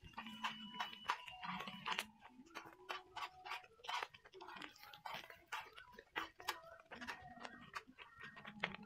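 Metal tongs clicking and scraping against a non-stick griddle pan as sliced onions and egg are stir-fried, many quick irregular taps.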